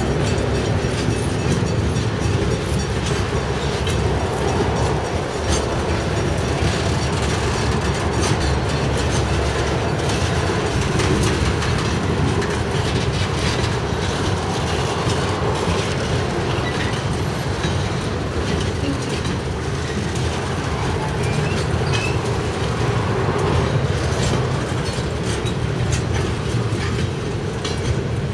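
Loaded freight hopper wagons rolling past, steel wheels clattering over the rail joints in a steady rumble, a little quieter near the end as the last wagons go by.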